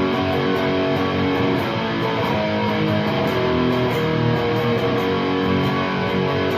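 Electric guitar played through an Orange Super Crush 100 amplifier on its distorted dirty channel: overdriven chords ringing out and changing every second or so.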